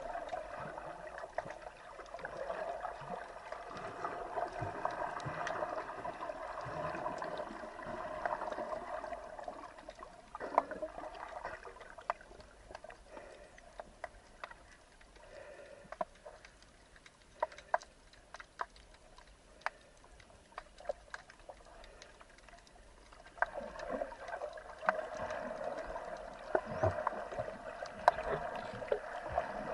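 Muffled water noise picked up by a camera held underwater: a gurgling hiss of moving water that drops away for a stretch in the middle and comes back near the end, with scattered sharp clicks throughout.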